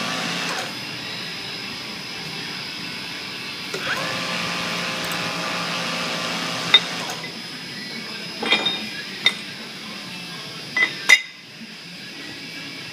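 Brake caliper castings being handled in a steel machining fixture: sharp metal clinks and knocks, several of them from about seven seconds in. Under them runs a steady mechanical hum that drops in level about half a second in.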